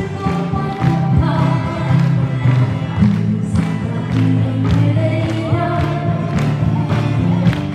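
Music: a song with a regular drum beat under sustained pitched tones, with singing.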